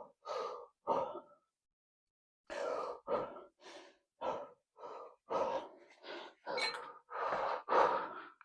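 A man breathing hard to recover from a heavy set of squats: quick, noisy breaths in and out, about two a second, with a pause of about a second after the first two.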